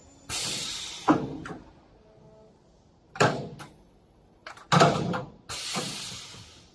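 Sheet metal being handled and folded on a JDC Bend 1250E electromagnetic sheet metal brake: a series of metallic clunks and sliding, scraping noises from the sheet and the clamping bar, with sharp knocks about a second in and again near five seconds.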